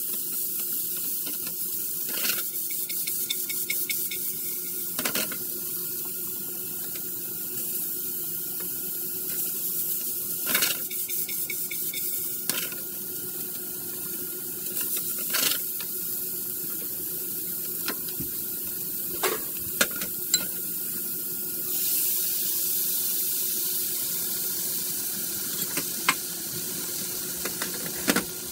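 Kitchen cooking sounds: a steady hiss with a low hum under it, and scattered sharp clinks of a utensil against cookware.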